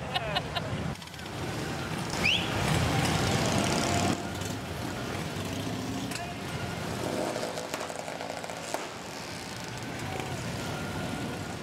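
Several motorcycle engines running as bikes ride slowly along a crowded street, a steady rumble that is loudest about two to four seconds in. A woman laughs briefly at the start.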